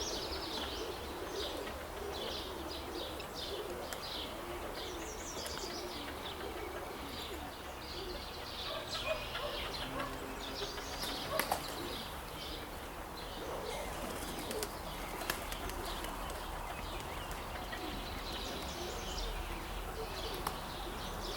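Outdoor bird sounds around a pigeon loft: many short, high chirps and calls, with a few brief sharp clicks.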